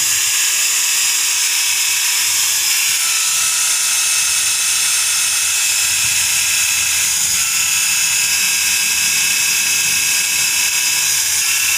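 Electric drill running steadily, spinning an engine valve against its seat coated in grinding paste to lap the valve into the seat. A steady whine that shifts slightly in pitch a couple of times and begins to slow near the end.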